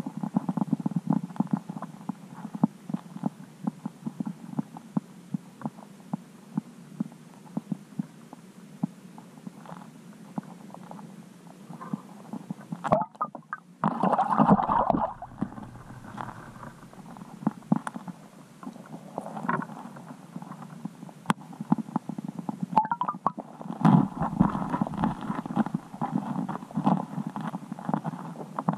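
Muffled underwater rumble and gurgling heard through a camera submerged beneath the ice, with frequent small knocks and clicks. It swells louder twice, about halfway through and again near the end.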